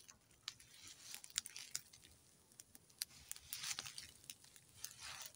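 Dry fallen leaves crunching and rustling underfoot in a few short bursts, with scattered sharp crackles.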